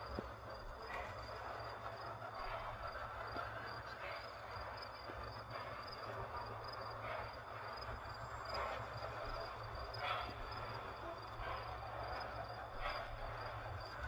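Crickets chirping faintly at night in a steady pulsing trill, over a low steady hum and hiss.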